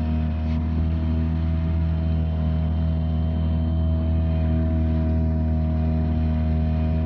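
Boat engine running steadily at constant speed, a loud, even drone with a deep hum.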